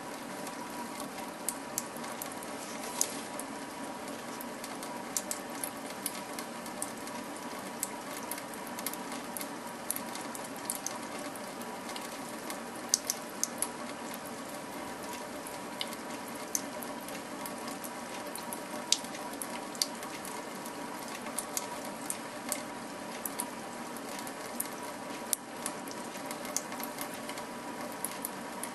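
Thin stream of tap water running steadily from a kitchen faucet into a stainless steel sink while a kitten laps at it, with scattered sharp clicks and small splashes at irregular moments.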